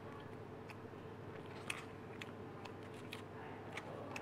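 Cutlery clicking lightly against a food container while someone eats, about six short sharp clicks, the loudest about a second and a half in, over a faint steady hum.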